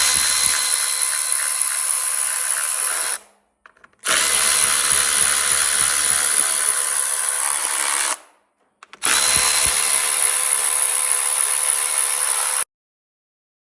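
A cordless power drill whines steadily in three runs of a few seconds each with short pauses between. It is spinning out valve cover bolts.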